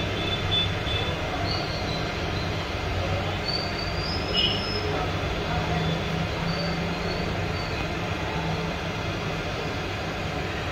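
Hot air rework station blowing a steady stream of hot air onto a phone board to solder the eMMC chip back in place.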